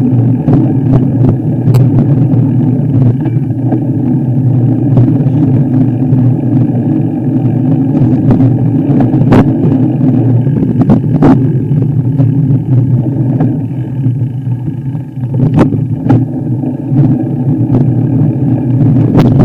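A vehicle engine running steadily while driving, with occasional sharp knocks and clatters over it, and a brief easing-off about three quarters of the way through.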